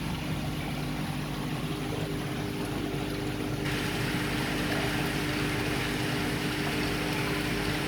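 Steady hum of pond pump equipment with running water over the fry pool; the water hiss grows louder a little under four seconds in.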